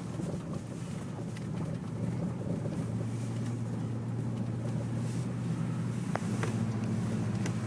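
Vehicle engine running steadily while driving, heard from inside the cab, with a low drone that grows a little stronger about three seconds in.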